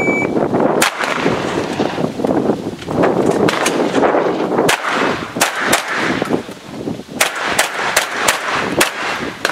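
A shot timer's start beep right at the start, then a shotgun fired in a string of shots. There is one shot about a second in and a long pause before more, in a run hampered by a feeding problem, then a quick run of about six shots near the end.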